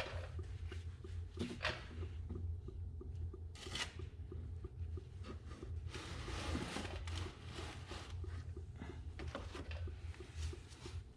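Hand work with tools: scattered scrapes, rustles and light clicks, with a longer scrape about six seconds in, over a steady low hum.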